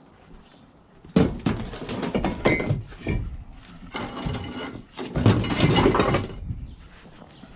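Scrap being handled: a run of clanks and bangs, with a brief metallic ring about two and a half seconds in and a louder cluster of knocks near the end.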